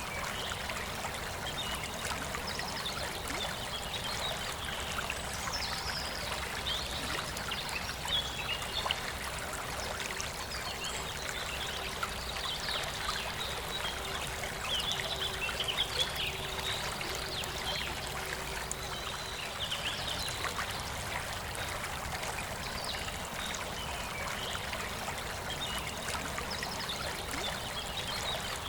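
Forest river flowing steadily, with birds chirping over the rushing water throughout.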